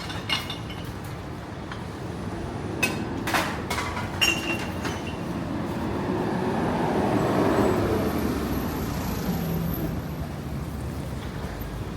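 Street traffic, with a vehicle passing that swells to its loudest a little past the middle and then fades. A few sharp clicks and clatters come in the first half.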